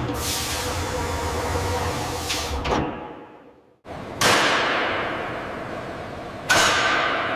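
Cinematic sound-design transition effects. A falling whoosh over a low rumble fades out to silence, then come two sudden hits, each trailing a falling whoosh: one about four seconds in and one near the end.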